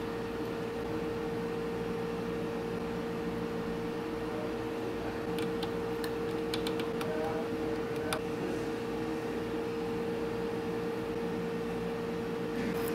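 Steady machine hum with one constant mid-pitched tone, as from shop equipment running. A few light metallic clicks come between about five and eight seconds in, as a steel rule and awl are handled on a metal table.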